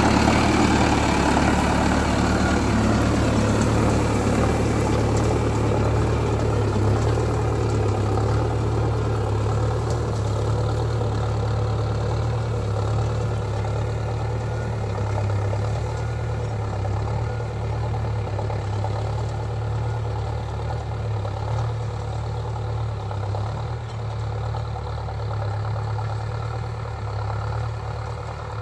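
Mahindra Arjun Novo 605 DI-i tractor's four-cylinder diesel engine running steadily under load while pulling a seed drill. The sound fades gradually as the tractor moves away.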